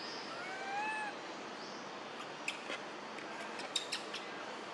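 A baby macaque gives a single coo call about a second long near the start, pitched and rising a little before levelling off. A few sharp clicks follow later.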